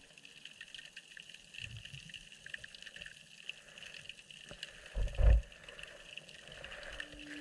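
Underwater sound picked up by a GoPro in its housing: a faint steady hiss full of small crackles and ticks, with a pair of low thumps about five seconds in.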